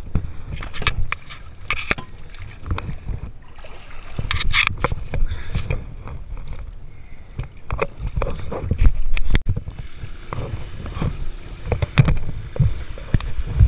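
Irregular knocks and water splashing close to the microphone; from about ten seconds in, a steady hiss of water spraying from a trash pump's discharge hose joins in.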